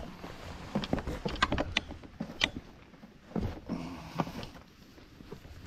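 Irregular footsteps, scuffs and knocks of someone going down steps onto a grass bank, with clothing rustle.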